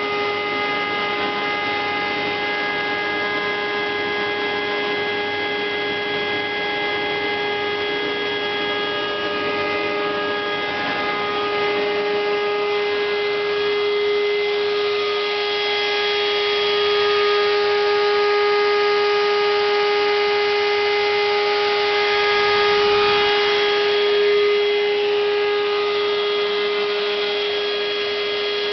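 Home-made CNC router running: a steady machine whine with one strong pitch and several overtones, with a hissing noise that swells in the middle and eases near the end.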